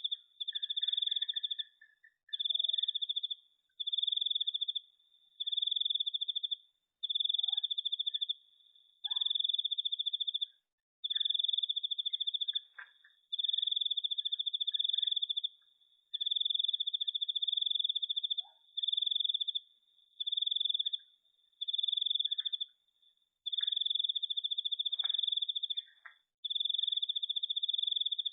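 A cricket trilling in repeated high-pitched bouts of one to two seconds with short breaks between them. Faint short chirps and calls from other night animals come in between.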